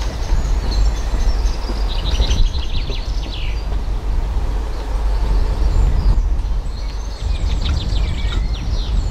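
Low steady rumble of a diesel locomotive, a Class 35 Hymek, coming slowly down the line. Small birds sing quick twittering phrases over it about two seconds in and again near the end.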